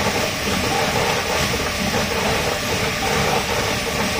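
A dog-powered drum treadmill (carpet mill) running steadily, its belt and roller clattering under a dog's running paws.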